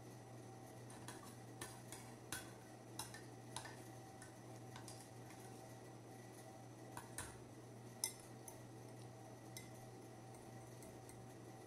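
Metal spoon clinking against ceramic bowls and plates during a meal: about a dozen sharp clinks at irregular intervals, the loudest about eight seconds in, over a low steady hum.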